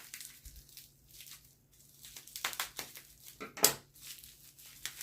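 Packaging being crinkled and torn in irregular rustles as a tightly wrapped item is worked free by hand, with one sharper crackle a little past halfway.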